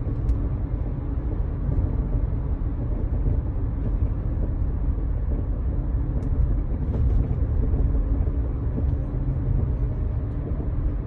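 2016 Nissan Sentra driving on a straight road: steady low road and tyre rumble heard from inside the car, with a few faint light knocks from the suspension. The knocking, which the owner likens to a batedeira, was traced to the worn original shock absorbers and bump stops.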